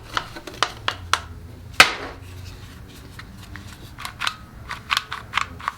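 Sharp plastic clicks and knocks of a cordless tool battery and its packaging being handled. There is one loud knock about two seconds in and a quick run of clicks near the end.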